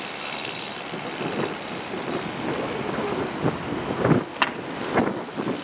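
Steady rough rumble of a large ship manoeuvring close to the quay, mixed with wind noise, with a few sharp knocks about four to five seconds in.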